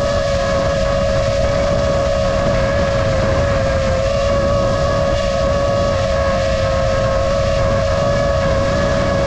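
Brushless motors and propellers of an iFlight Nazgul F5D five-inch FPV quadcopter whining at a nearly steady pitch with a slight waver, picked up by the GoPro mounted on the drone. Wind rumbles on the microphone underneath.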